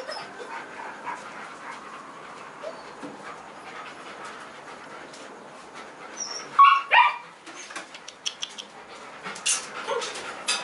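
A puppy gives two short, high yips in quick succession about six and a half seconds in. A few light ticks follow near the end.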